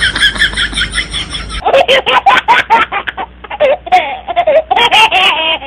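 Women talking and laughing, with a quick run of high-pitched giggling in the first second and a half.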